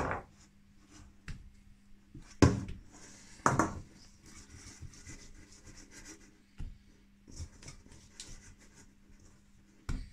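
Hand scraping sticky sourdough off the inside of a stainless steel bowl and working it onto the dough on a granite counter, with light scraping and rubbing and a few sharp knocks, two loud ones close together about a third of the way in. A faint steady hum runs underneath.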